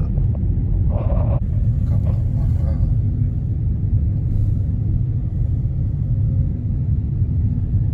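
A car driving along a road: steady low rumble of engine and tyres.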